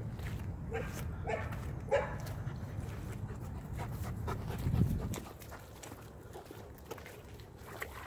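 Blue Bay Shepherd panting close by, over a low rumble that drops away about five seconds in.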